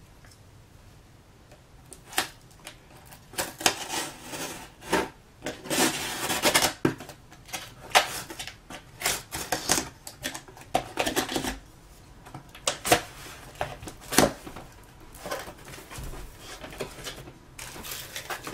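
A folding pocket knife slicing through packing tape along the seams of a cardboard shipping box, then the cardboard flaps being pulled open: irregular rasping cuts and sharp snaps and scrapes of cardboard.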